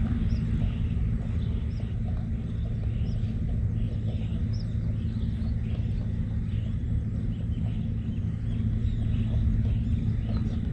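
Outdoor ambience of a steady low rumble, with faint high bird chirps about once a second.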